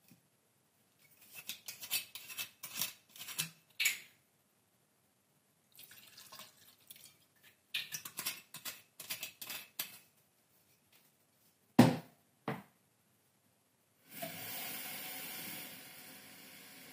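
Short clinks and rattles of kitchen items being handled, two sharp knocks about twelve seconds in, then water running steadily for about three seconds near the end.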